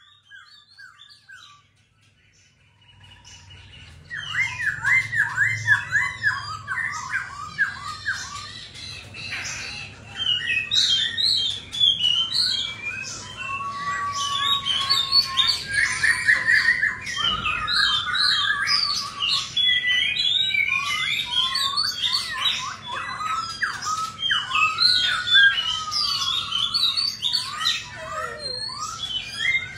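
Black-throated laughingthrush singing a long, varied song of fast repeated notes, whistles and sliding phrases. It gives only a few soft calls at first, then bursts into full song about four seconds in and keeps it up.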